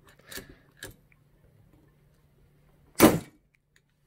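Swivel-head hand riveter setting a 3/16-inch aluminium pop rivet: a couple of faint clicks as the handles are squeezed, then about three seconds in one loud, sharp pop as the rivet's mandrel snaps off and the rivet is set.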